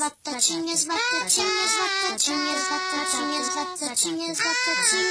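High, child-like voices singing a cheerful children's song in short sung phrases, with a brief break between phrases just after the start.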